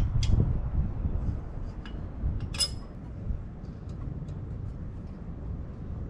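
Metal clicks and clinks from a wrench working on the exhaust header bolts of a Yamaha SR400, with one ringing metallic clink about two and a half seconds in, over a low background rumble.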